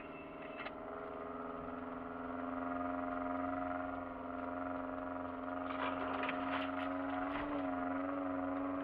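Off-road vehicle's engine running steadily under load while driving up a snowy dirt track, heard from inside the cabin. Its pitch rises a little early on and dips briefly near the end. A cluster of short knocks and rattles comes about six to seven seconds in.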